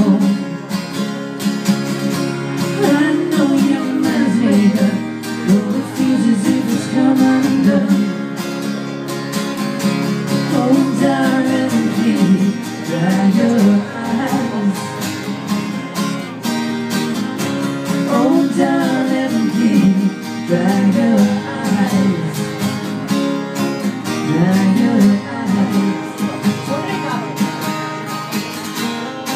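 Two acoustic guitars strummed in a live unplugged song, with a voice singing over them at intervals.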